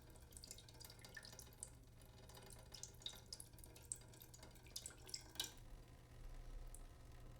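Faint water drips from a leaking sink: irregular drops falling several times a second.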